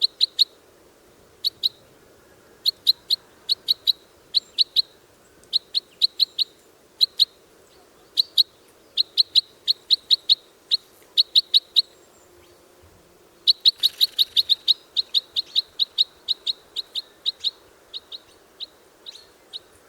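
Red crossbill (common crossbill) giving short, sharp call notes, repeated in quick clusters of two to five, with a faster, denser run about two thirds of the way through.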